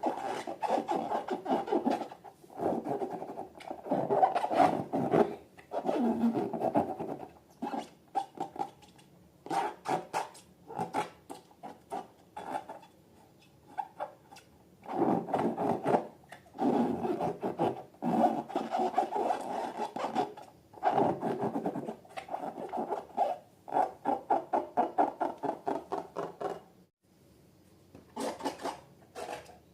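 Rubbing and scraping handling noise from balloons and slime being worked by hand, in bursts of a second or two with short pauses, finely crackly. It stops for a moment near the end, then one short burst follows.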